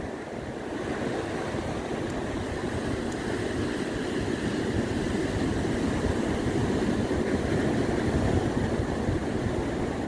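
Rough ocean surf breaking on a sandy beach, a steady rushing noise, with wind buffeting the microphone.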